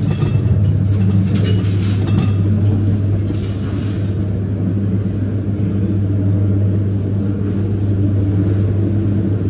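Ghost train dark-ride car rumbling along its track, with a steady low hum throughout and a few clattering knocks in the first few seconds.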